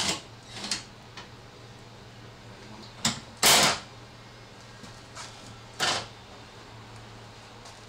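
Short bursts of tool and parts noise from work on a car's radiator support panel: a sharp click about three seconds in, then a loud noisy burst of about half a second, and another shorter one near six seconds. A steady low hum runs underneath.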